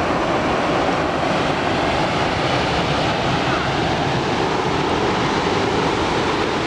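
Steady, even rush of ocean surf breaking on the beach.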